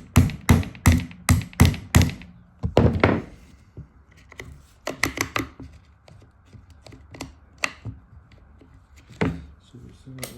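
Hammer tapping the top pivot pin of a Husqvarna 372XP chainsaw's throttle trigger into its rear handle: a quick run of about eight sharp taps, then a short scrape and a few scattered taps and clicks.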